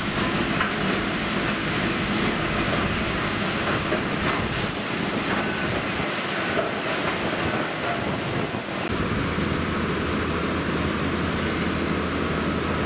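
A train running past on the tracks, its wheels clattering with a brief high hiss about five seconds in. About nine seconds in, the clatter gives way to a steady low hum.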